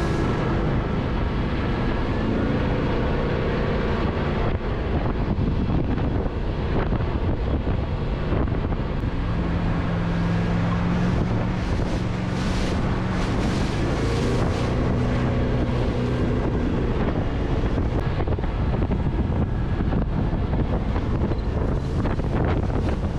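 A motorboat engine runs steadily under way, its pitch shifting now and then as the speed changes. Wind buffets the microphone and water rushes past the hull.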